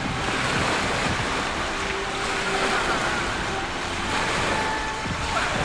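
Steady rushing wind noise on the camera microphone.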